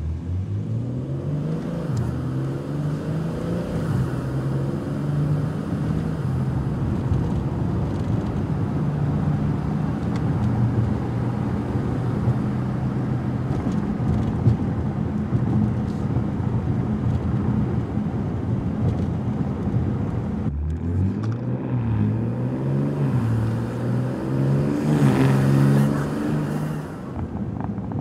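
BMW G80 M3's twin-turbo straight-six through a Fi Exhaust valvetronic catback, heard from inside the cabin with the exhaust valves closed: it pulls away, rising in pitch through a few upshifts, then cruises. About two-thirds of the way through, the sound breaks off and the car accelerates through the gears again, loudest near the end.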